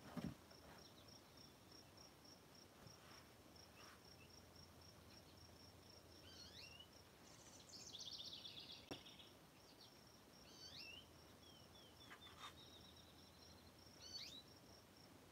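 Faint ambience: an insect chirping in a steady, evenly pulsed high trill, with a few short bird chirps over it. A soft knock at the very start and a faint click a little past the middle.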